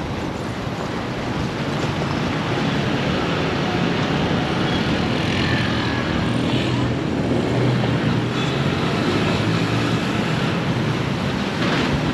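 Steady road traffic with a low engine hum from running vehicles.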